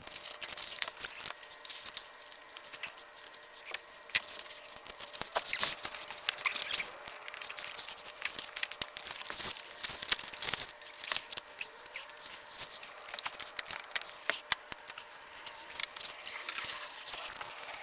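Sheet material being crinkled and torn by hand: irregular rustling and crackling, with a louder rustle near the end.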